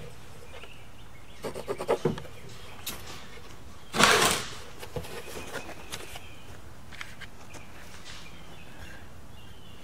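Light knocks and clatter of wood pieces being handled, then one short, loud rasping scrape about four seconds in.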